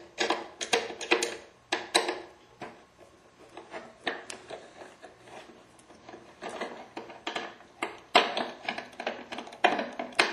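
Small Phillips screwdriver working tiny screws out of the timer motor mount on a Fleck 5600 water softener valve: irregular light clicks and taps of the tool on the screws and housing, coming in clusters with short pauses.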